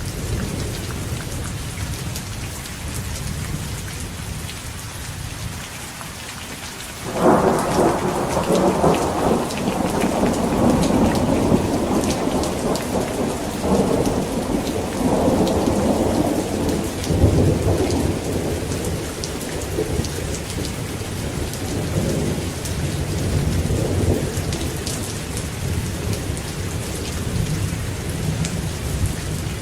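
Heavy rain falling steadily under a low thunder rumble. About seven seconds in, a sudden thunderclap breaks into long rolling thunder, which swells again a few times before easing toward the end.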